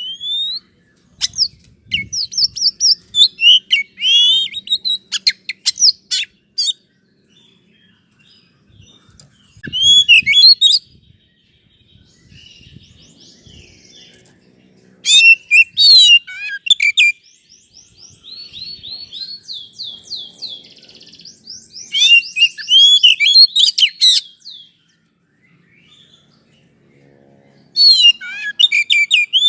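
Oriental magpie-robin (kacer) singing: loud bursts of varied whistles, up-and-down sweeps and rapid chattering trills, with short pauses between phrases and a softer, quicker run of notes midway. It is the kind of song played to a caged kacer as a lure to provoke it into singing.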